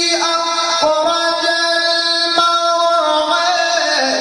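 Male Quran reciter's voice chanting in the melismatic mujawwad style in maqam Nahawand. He holds long steady notes and steps between pitches, dipping lower near the end.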